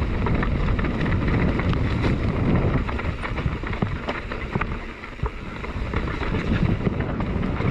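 Mountain bike descending a rough dirt trail at speed: wind buffeting the on-bike camera's microphone as a steady rumble, with tyre noise and frequent sharp rattles and clicks from the bike over bumps.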